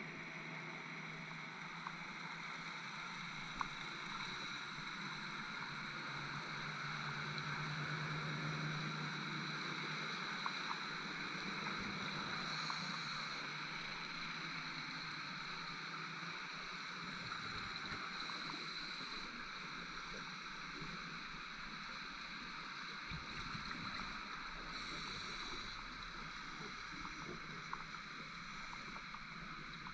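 Underwater ambience picked up through a diving camera's housing: a steady hiss with faint scattered clicks, broken about every six seconds by a short burst of gurgling from a scuba diver's exhaled regulator bubbles.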